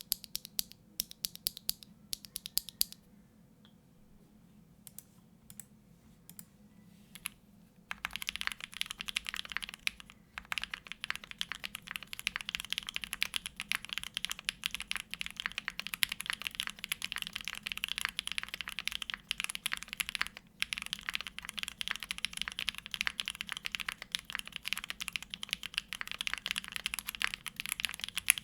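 Mechanical keyboard typing on a TKD Cycle7 with an aluminium plate and case foam, hand-lubed Kailh BCP switches and GMK Grand Prix keycaps. A few separate keystrokes and scattered presses at first, then fast continuous typing from about eight seconds in, with a couple of brief pauses.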